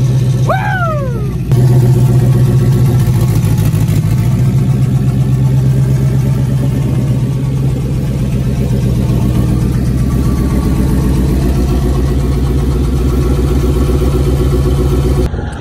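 Turbocharged Ford Coyote 5.0 V8 in a Mustang idling steadily just after its first start-up as a freshly built engine. The pitch stays even, with no revving.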